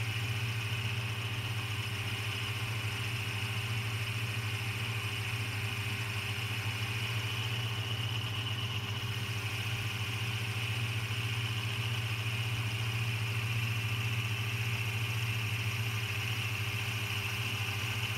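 Boxford Model A lathe running steadily under a facing cut on a stainless steel part, a low hum with a thin high whine above it.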